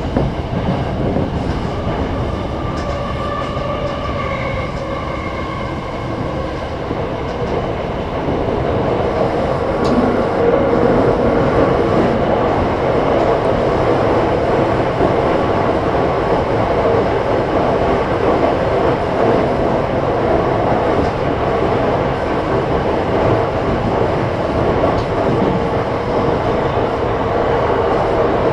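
Commuter electric train running at speed, heard from inside the driver's cab: steady rumble of wheels on rail, with a faint whine in the first few seconds. The running noise grows louder about eight seconds in and then holds steady.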